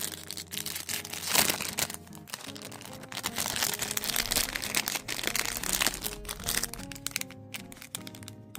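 Packaging crinkling and crackling as a parcel is unwrapped and handled, with one sharp crackle about a second and a half in; the crinkling dies away near the end. Background music plays throughout.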